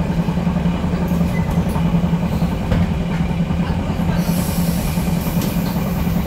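Cabin ride noise of a ZiU trolleybus under way: a steady low hum over a low rumble, with a hiss coming in about four seconds in.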